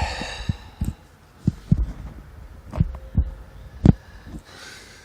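A handful of dull, irregular thumps and knocks, the loudest a little before the end, with light rustling between them.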